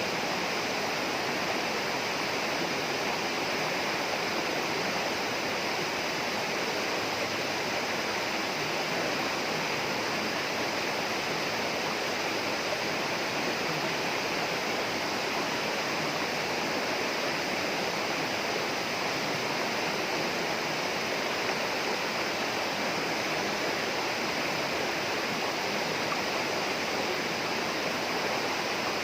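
Steady rush of running water in a tropical rainforest, an even hiss that does not change.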